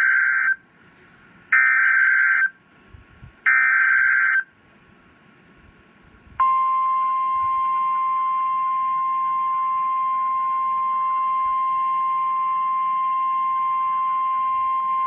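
Emergency Alert System SAME header: three harsh data bursts, each about a second long and a second apart. About six seconds in, a loud, steady single-pitched warning alarm tone starts and holds, typical of NOAA Weather Radio's 1050 Hz alert for a tornado warning.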